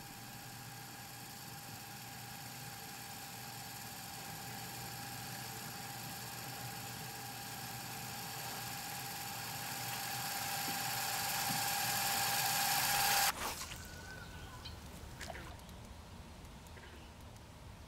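A sustained film-score drone of held tones and hiss swells steadily louder for about thirteen seconds, then cuts off abruptly. Quiet outdoor ambience with a few faint clicks follows.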